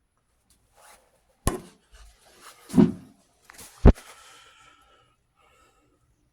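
Three knocks about a second apart while dryer parts are handled, the last the sharpest and followed by a brief metallic ring and scraping.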